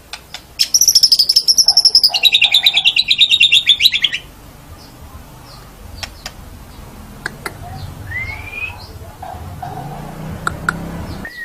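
White-rumped shama (murai batu) singing: a fast, loud trill of rapidly repeated notes lasting about three and a half seconds, dropping to a lower pitch halfway through. After it come scattered sharp clicks and a short rising whistle.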